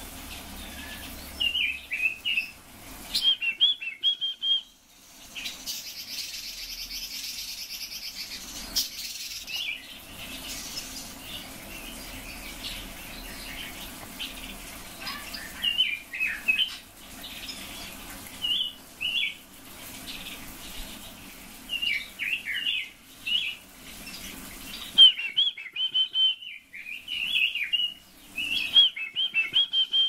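Caged red-billed leiothrixes (Pekin robins) singing in short chirping, warbling phrases, scattered at first and coming thick and fast over the last few seconds, over a steady low background hum.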